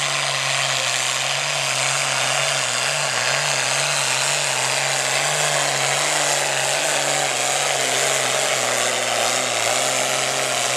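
Pro farm class pulling tractor's turbocharged diesel engine running flat out while pulling the sled down the track. It is a loud, steady engine note whose pitch wavers slightly as the tractor works against the load.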